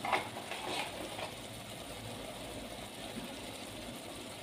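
Onion-tomato masala, with a little water added, simmering and sizzling softly in an aluminium pot: a faint, steady sizzle.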